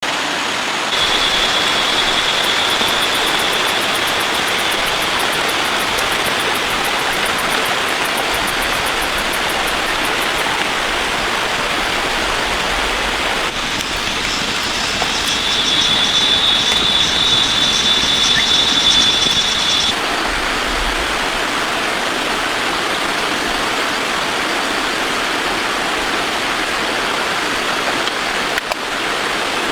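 Heavy rain falling steadily. A thin, high, steady whine sounds over it for a few seconds near the start and again for about five seconds midway.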